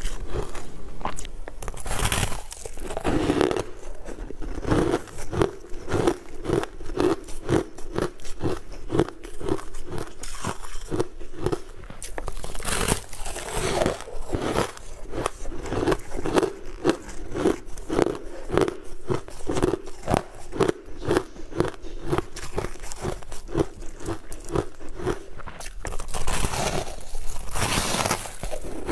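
Refrozen ice being bitten and chewed right at a clip-on microphone. Three loud crunching bites, each followed by steady chewing crunches about three a second.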